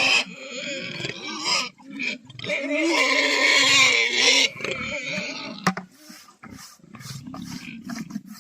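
Pigs squealing in two long, loud bouts, the second the loudest, then settling to quieter grunting, with a single sharp click about six seconds in.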